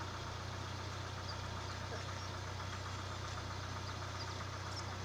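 An SUV engine idling steadily.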